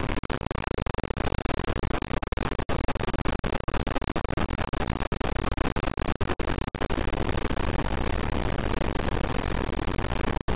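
A slice of a few milliseconds of multitrack audio looped over and over in a DAW, giving a harsh, dense noise. It cuts out briefly many times, most of all in the first seven seconds.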